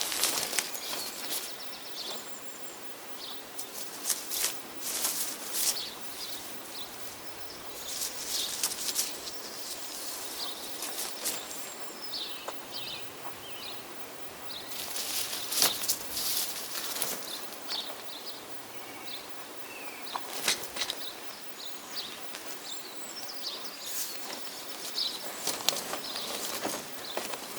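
Irregular clicks, taps and short scraping rustles of hands-on work, coming in clusters with pauses between, over a steady hiss, with a few short high chirps now and then.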